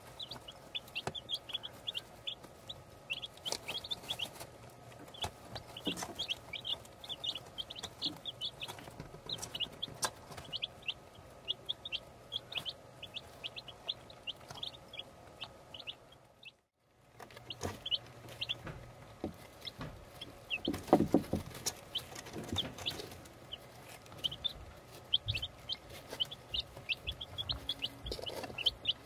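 Week-old baby chicks peeping: many short, high cheeps in quick succession, with a brief break in the sound a little past halfway and a louder knock about two-thirds through.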